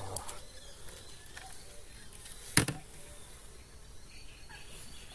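Faint handling noise of a landing net and fishing rod as a fish is landed, with one sharp knock about two and a half seconds in.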